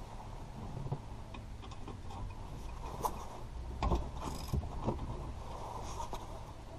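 Socket ratchet loosening a front brake caliper bolt, with scattered clicks and a few sharper metal knocks, the loudest between about three and five seconds in.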